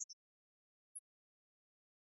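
Near silence, broken by three very short, high-pitched clicks: two right at the start and one about a second in.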